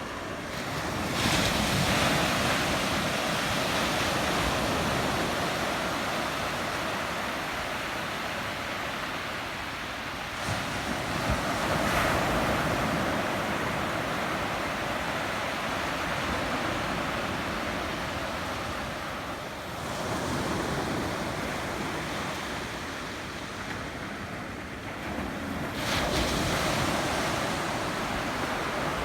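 Sea waves breaking on a sandy beach: a steady wash of surf, with a bigger wave crashing in about a second in, again around eleven seconds, twenty seconds and twenty-six seconds in.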